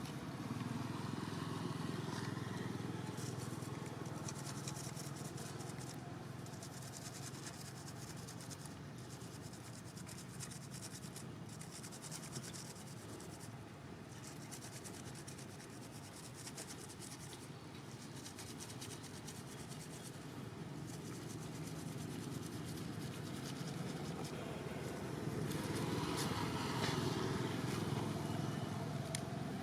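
Steady low outdoor rumble with scratchy rustling that comes and goes, growing louder near the end.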